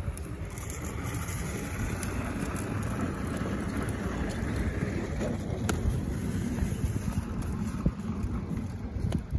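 Plastic wheels of a rolling cooler running steadily over ice, with a water-soaked towel dragging behind it: a homemade ice resurfacer at work. A few light clicks stand out, one about halfway through.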